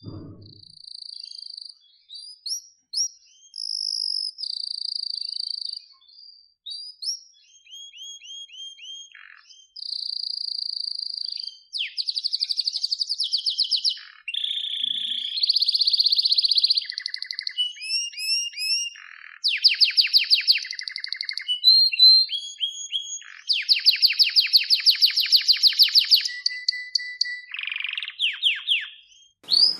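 Domestic canary singing a long, varied song. It alternates steady whistled notes, fast rattling trills and series of short downward-sliding notes, in phrases a few seconds long with brief pauses between.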